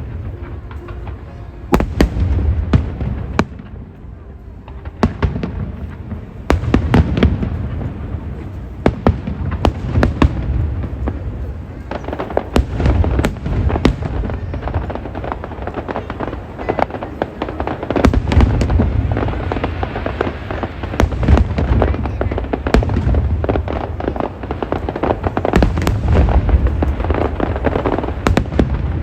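High-altitude aerial fireworks going off in a continuous barrage: many sharp bangs mixed with deep booming bursts, one after another.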